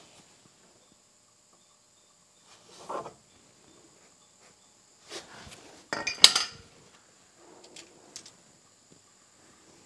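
Metal hand tools handled: a soft scrape about three seconds in, then a short cluster of sharp metallic clicks and clinks about six seconds in, the loudest sound, as locking pliers are worked.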